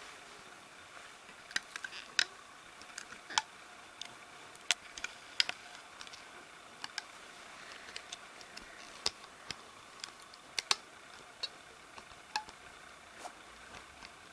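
Rubber bands being stretched and snapped onto the plastic pegs of a Rainbow Loom with a hook: irregular sharp clicks and snaps, spaced apart by a fraction of a second to a couple of seconds.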